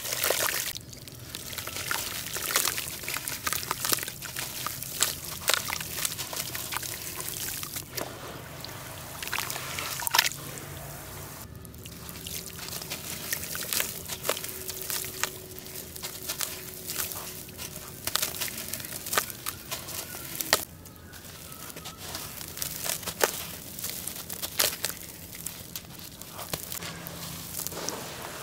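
Wet charcoal lumps crushed and crumbled by hand in a basin of water: many sharp crackles and crunches as the pieces break, over water trickling, dripping and sloshing as the grit and water run off the hands.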